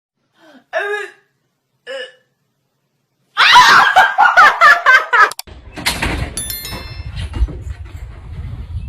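Two short calls, then about two seconds of loud laughter, followed by a low rumbling noise.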